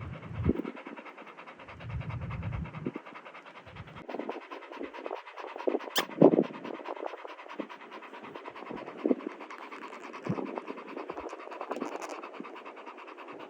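A pit bull-type dog panting quickly and steadily, with scattered knocks and thumps; the loudest comes about six seconds in.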